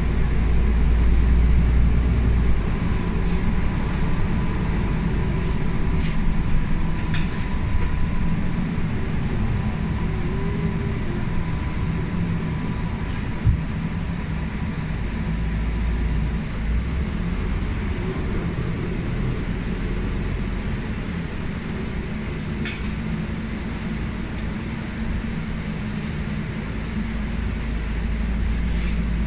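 Cabin sound of an MAN A95 Euro 6 diesel double-decker bus with a ZF EcoLife six-speed automatic gearbox under way: a steady low drone of engine and road noise, heavier at the start and again near the end. A faint thin whine runs through the first dozen seconds, and a few short rattles and clicks come from the interior.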